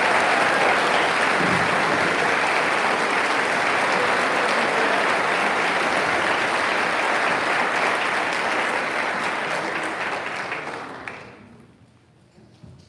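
Audience applauding, steady and loud, then dying away about eleven seconds in.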